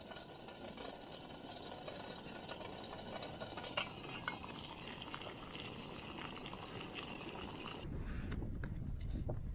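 Gas canister stove burning under a lidded cook pot with a steady hiss, and the pot's metal lid clinking twice about four seconds in. Near the end the hiss gives way to wind on the microphone and light clicks as a plastic canister lid is handled.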